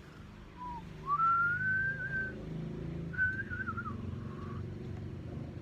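A person whistling a few notes: a long note that slides up and is held, then after a short pause a wavering phrase that drops away, over a low background rumble.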